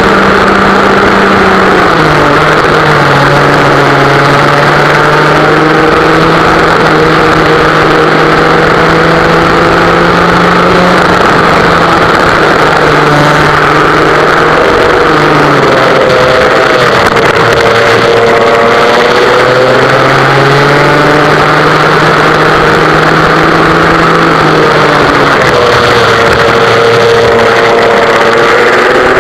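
West Bend two-stroke kart engine running hard, heard onboard, its pitch rising as it accelerates down the straights and dropping as it slows for corners, several times over. Loud and continuous.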